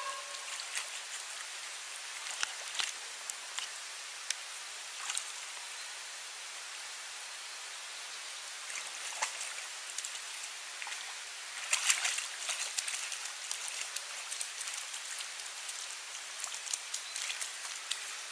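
Shallow water trickling steadily, with irregular splashes and drips as a wolverine wades and paws through the pool; the splashing is busiest about twelve seconds in.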